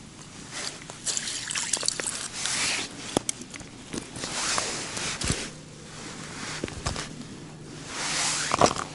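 A roach being landed through a hole in the ice: water dripping and splashing as the wet fish and line come out of the hole. Several rustling bursts of clothing and small sharp clicks of handling come with it.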